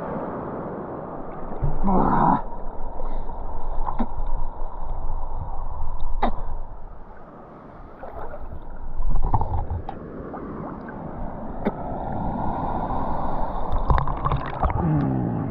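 Sea water splashing and surging around a swimmer in the waves, rising and falling in loudness, with a few sharp clicks.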